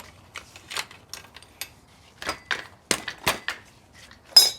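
Bicycle chain clicking and clinking irregularly against metal as it is worked off the rear sprocket, with one louder, ringing metal clank near the end.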